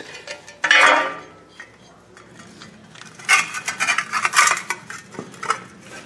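Metal clinks and scrapes as a new wheel bearing hub assembly is handled and fitted against its steel dust shield, in short clusters about a second in and again past the middle.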